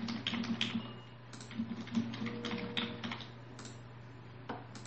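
Computer keyboard typing: a quick, irregular run of key clicks, thinning out after about three seconds, as a password is typed in.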